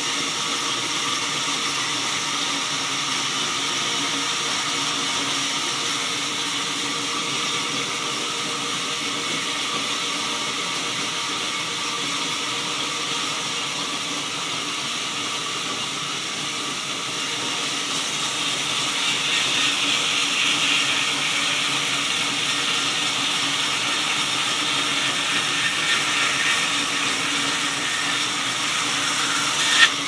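Belt-driven band saw of a sawmill running steadily with a constant whine and hiss. It grows louder and harsher about two-thirds of the way through, and there is a sharp click near the end.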